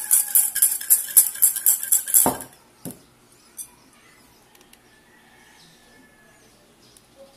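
Wire balloon whisk beating dalgona coffee mix in a ceramic bowl, the wires clicking against the bowl at about four strokes a second. About two and a half seconds in the whisking stops with a dull thump, followed by a couple of light knocks.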